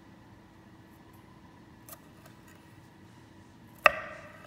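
Chef's knife cutting red bell pepper on a wooden end-grain butcher block: a faint tap about halfway through, then one sharp, loud knock of the blade on the board near the end, with a short ringing tail.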